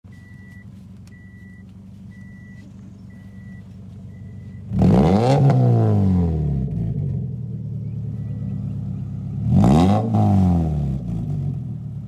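Subaru Forester flat-four engine idling through a loosely fitted used test muffler, then blipped twice: each rev rises sharply and falls back over a second or two. During the idle at the start, a high chime beeps five times, about once a second.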